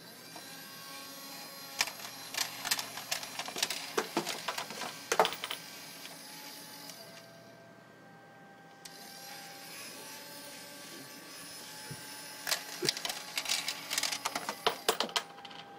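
Coins dropped into a homemade coin-sorting bank, clicking and clattering as they run down the track and fall through their sized holes. They come in two flurries of rapid clicks several seconds apart, over a faint steady hum.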